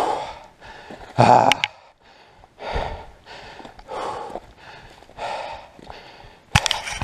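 A mountain biker breathing hard after a crash, one heavy breath about every second and a bit. A few sharp clicks come near the end.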